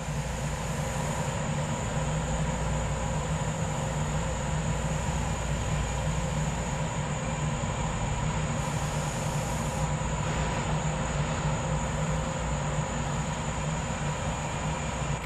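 ABB N5 electric light-rail car drawing slowly closer: a steady low hum with faint steady whining tones above it, over an even running noise.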